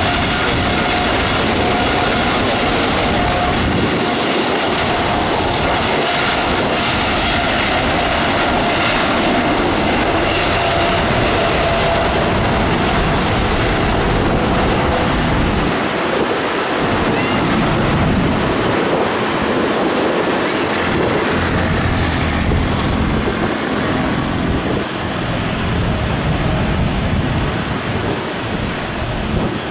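Jet engines of an Airbus A330-900neo running on the runway: a steady engine whine over a broad rumble. The whine fades about twelve seconds in as the airliner turns away, leaving the rumble.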